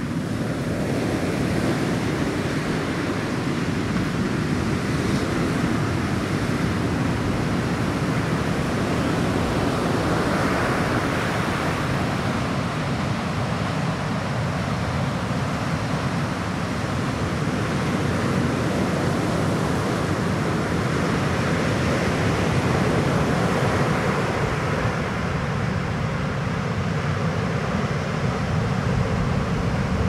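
Ocean surf breaking and washing up the beach: a steady rush of waves that swells about every ten seconds.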